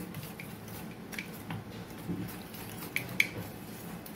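Wire whisk stirring thick whole-wheat and oats batter in a stainless-steel bowl: soft squishing of the batter, with a few light clicks of the wires against the bowl, two of them close together about three seconds in.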